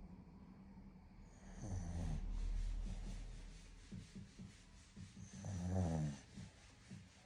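Shorkie dog snoring: two loud snores about four seconds apart, with short soft breaths between them.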